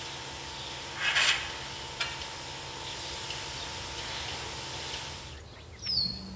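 Feed being pushed along a cattle barn's feed alley with a long-handled tool: one scraping swish about a second in, with a few light knocks, over a steady machine hum. Near the end a short, falling bird chirp.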